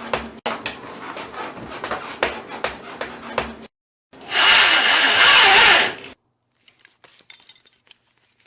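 Irregular clicking and creaking from a wooden floor, then about four seconds in a drill runs loud for about two seconds, driving a wood screw through the floorboards into the joist to stop the creak.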